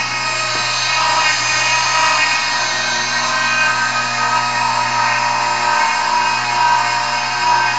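Brushless DC motor running on its driver and speed and angle controller: a steady electric whine made of several high tones over a low hum.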